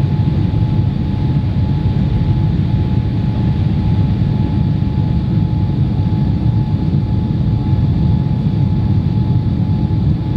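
Boeing 787-8's jet engines heard from inside the economy cabin: a steady low roar with a faint steady whine above it.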